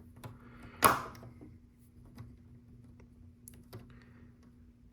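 Small plastic LEGO bricks clicking as they are handled, with one sharp clack about a second in and a few lighter ticks after it.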